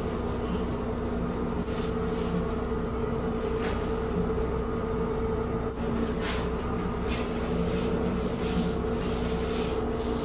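A steady machine hum with a low rumble in a small tiled bathroom, holding several fixed tones, with a few faint short noises and one sharper knock about six seconds in.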